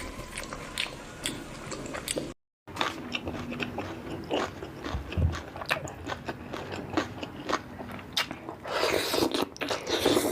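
A person biting and chewing crunchy food close to the microphone: irregular sharp crunches and smacks. The sound drops out briefly about two and a half seconds in, and the chewing grows denser and louder near the end.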